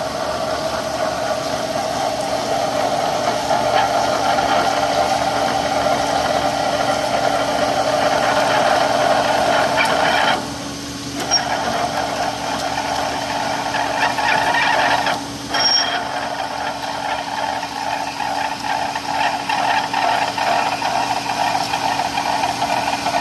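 A manual lathe drilling with a 1½-inch drill bit, opening up a ¼-inch pilot hole: a steady grinding cutting sound with the machine running. The sound dips briefly twice, about ten seconds in and about fifteen seconds in, and turns to a rapid rattle in the second half.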